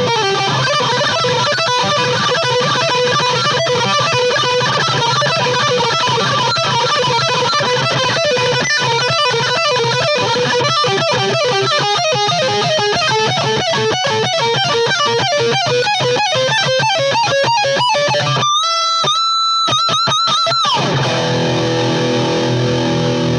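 Jackson King V electric guitar played through a miked amp cabinet: fast picked metal riffs and lead runs. About eighteen seconds in, a held note with wide vibrato, then a chord left ringing near the end.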